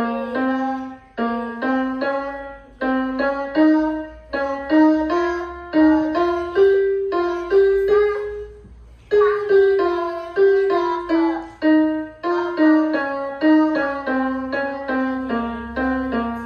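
Electronic keyboard played one note at a time in a piano voice. It is a Hindustani alankar, a stepwise scale exercise played in short groups of notes: rising for about eight seconds, a brief pause, then falling back down.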